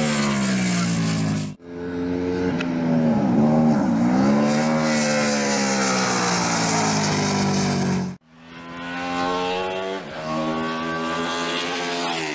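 Britten V1000 V-twin racing motorcycle engine running hard at speed on a track, heard in three short clips joined by abrupt cuts about one and a half and eight seconds in. In the middle clip the engine note dips and climbs back twice, like throttle being rolled off and reapplied.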